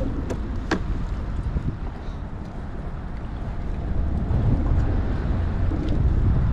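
Wind buffeting the action-camera microphone as a low, steady rumble that grows louder over the last couple of seconds, with a sharp click a little under a second in.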